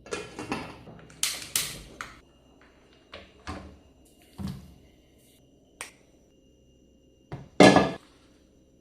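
Kitchen handling noises: a string of short knocks, clatters and brief rustling scrapes as things are moved about, with a louder, longer noise near the end.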